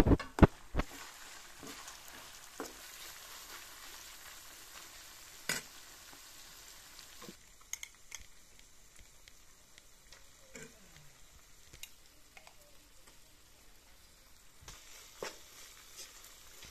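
Minced meat frying in a nonstick pan, sizzling steadily while a metal spoon scrapes and knocks against the pan as it is stirred. The sizzle fades about seven seconds in, leaving scattered clicks of the spoon on the pan and the jar.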